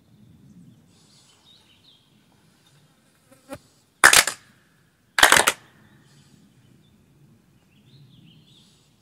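Two sharp ritual hand claps (kashiwade) about a second apart, the Shinto clapping before a kami that closes a norito prayer offering.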